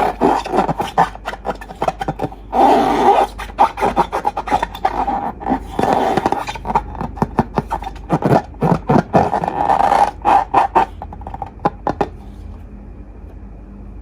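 Slime being squished and worked by hand: rapid sticky clicks and crackles with bursts of scraping, dying down after about eleven seconds.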